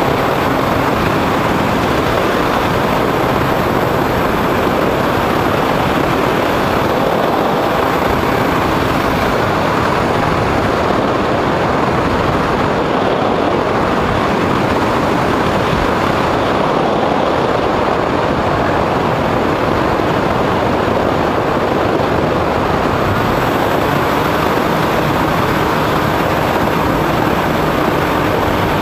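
Foam RC airplane's motor and propeller running steadily in flight, heard from a camera on the plane's nose, with airflow rushing over the microphone in one loud, unbroken noise.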